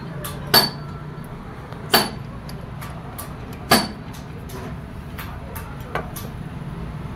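Sharp metal-on-metal clinks, three loud ones about a second and a half apart and a softer one near the end, as a drill bit is handled and fitted into a drill press chuck, over a steady low hum.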